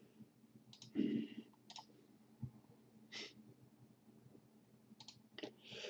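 Faint computer mouse clicks and the narrator's breaths near the microphone, with a longer breath about a second in and an inhale near the end.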